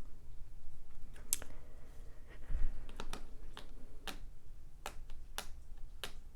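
Tarot cards being handled and shuffled, giving a scattered series of short, sharp snaps and clicks about every half second to second.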